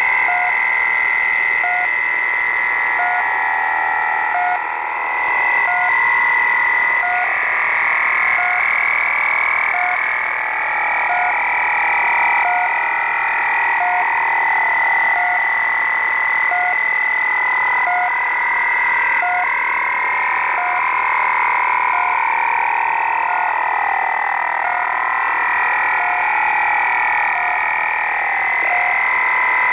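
Shortwave radio tuned to The Pip, the Russian military station: its short beeps repeat evenly about every second and a half. Under them runs a strange signal of steady whistling tones with warbling, wavering pitches, over a hiss of static.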